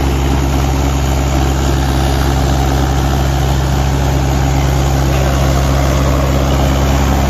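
Two Mahindra diesel tractor engines, an older 475 DI and a Yuvo 475, running hard at steady revs under full pulling load in a tractor tug-of-war.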